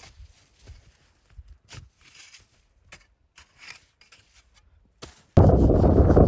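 Faint, scattered crunches and rustles for about five seconds, then near the end a sudden loud rush of wind buffeting the microphone.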